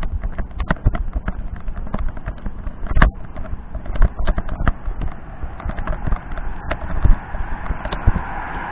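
Irregular knocks, thumps and clicks of walking with a hand-held recorder: footsteps and handling noise, with one sharp click about three seconds in. A steady hiss builds up near the end.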